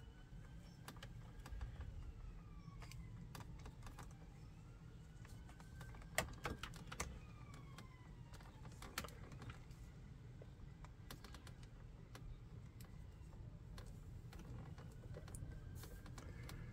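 Scattered clicks and ticks of wires and plastic connectors being handled in a dashboard wiring loom, over a low steady rumble. A siren wails faintly in the distance, rising and falling slowly.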